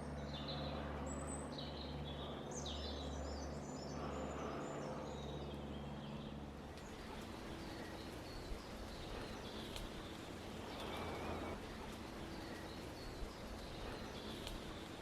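Small forest birds singing, short chirps and warbles over a steady ambient background. A low steady hum underlies the first half and stops about seven seconds in.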